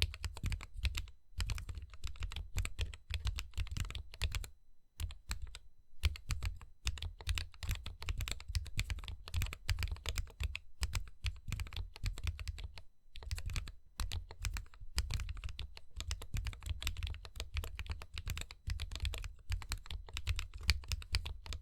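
Continuous fast typing on a custom 46-key mechanical keyboard: lubed Gateron Ink Black linear switches on a brass plate, with DSA keycaps and an acrylic case. The keystrokes come as dense clicks with a deep low thock under each one, broken by a few short pauses.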